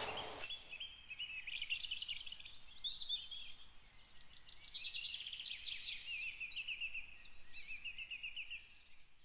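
Songbirds singing in woodland: a run of quick chirped and trilled phrases, one after another.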